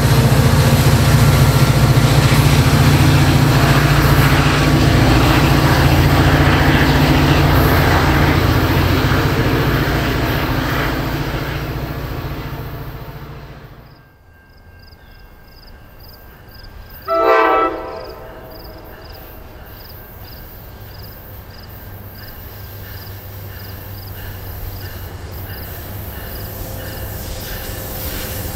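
NJ Transit GP40PH-2B diesel locomotive 4206 running with a steady low rumble as it pulls its commuter train away, the sound fading out. After a cut, a distant approaching train sounds one short horn blast a few seconds later, and its rumble slowly grows louder as it nears.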